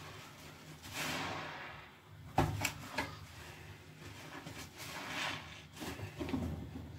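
Soap-soaked sponges being squeezed and squished by hand in thick foam over a plastic tub of soapy water: wet squelching and hissing swells of foam. About two and a half seconds in comes a sharp knock, the loudest sound, followed by a few smaller clicks.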